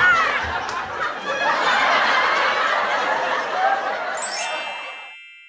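A crowd laughing, loud at first and going on for a few seconds before fading out. About four seconds in, a sparkly rising chime glide begins and rings on as the laughter dies away.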